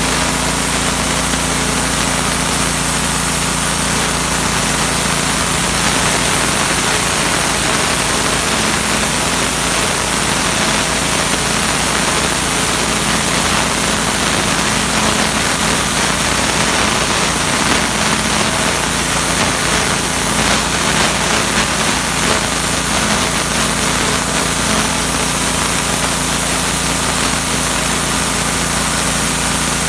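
Troy-Bilt 3100 psi gas pressure washer running steadily under load, its small engine humming beneath the loud, constant hiss of the high-pressure water jet stripping paint off the concrete court.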